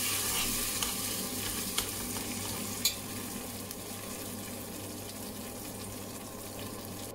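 Tomato paste sizzling in hot vegetable oil in a kazan, a steady frying hiss that eases a little over the seconds. A metal spoon clicks against the pot a few times in the first three seconds as the paste is stirred.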